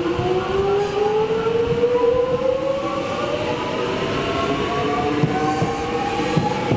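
Melbourne suburban electric train pulling away from the platform, its traction motors whining in several tones that rise steadily in pitch as it gathers speed, over the rumble of the wheels.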